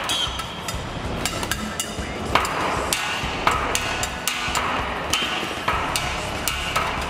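Rhythmic percussion struck on car parts such as exhaust pipes, barrels and wheel rims: quick, sharp banging hits several times a second over a low backing beat.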